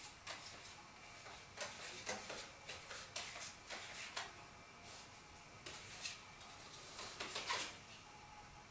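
Light taps, clicks and rustles of stiff cards being handled and set in place on a card house, coming in two short flurries.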